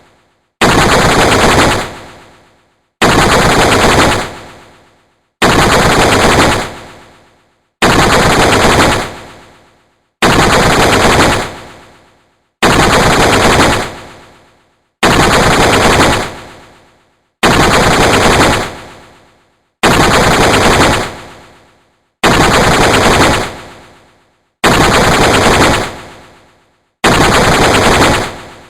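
Sci-fi 'alien machine gun' sound effect: a loud burst of rapid fire lasting about a second and a half, ending in a fading tail. The same burst repeats about every two and a half seconds, a dozen times over.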